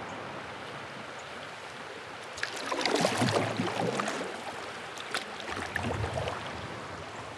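River water splashing and lapping around a kayak. It grows louder for about two seconds starting about two and a half seconds in, and a few light clicks come through the water noise.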